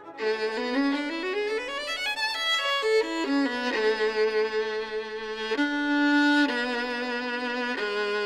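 A Stradivarius violin played solo with the bow: a quick rising run of notes, then a slow melody of long held notes.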